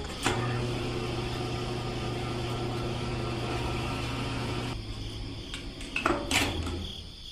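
A small electric motor hums steadily, then stops about five seconds in, followed by a few soft knocks.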